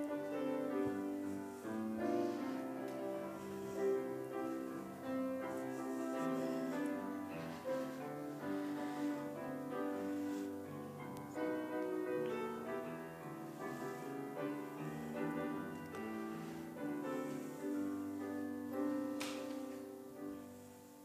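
Instrumental piano music, a slow passage of held notes and chords, dying away near the end.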